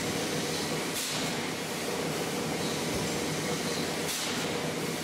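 Industrial plastics-processing machine running with a steady mechanical noise, broken by two short hisses about three seconds apart.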